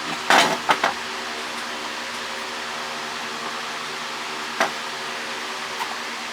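Short sharp knocks and clinks of work on a cast aluminum LNB housing while a circuit board stuck to it is pried loose: three close together about half a second in, one more past the middle and a faint one near the end. A steady background hum underneath.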